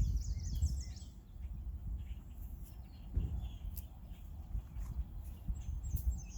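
Small birds chirping and twittering outdoors, with a quick run of chirps in the first second and scattered calls after, over a low steady rumble.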